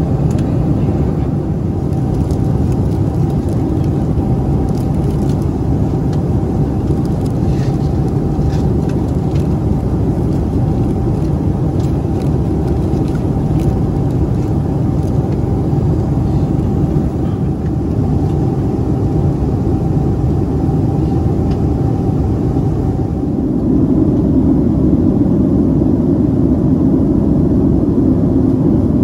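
Steady roar of a Boeing 767-300's cabin in cruise, engine and airflow noise, with faint crinkling of plastic packaging during the first half. About three-quarters of the way through, the roar shifts and grows a little louder.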